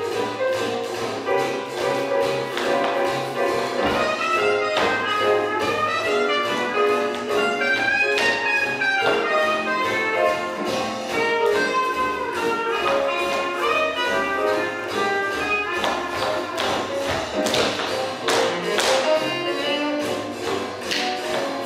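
Swing jazz music playing with a steady beat.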